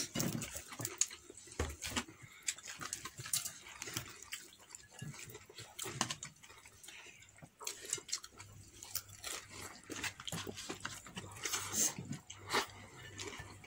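Crispy fried chicken being torn apart by hand and eaten close to the microphone: irregular crackles of the breading and chewing noises, with flatbread being torn near the end.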